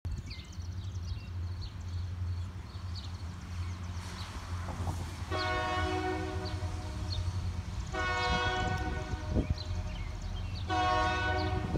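Multi-chime air horn of an approaching diesel-led freight train: two long blasts, then a third starting near the end, typical of a train sounding for a grade crossing. Under it runs the steady low rumble of the locomotives.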